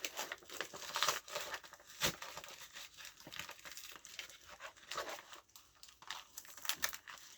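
Parcel packaging being handled and opened: irregular crinkling and rustling with a few sharp tearing sounds and clicks.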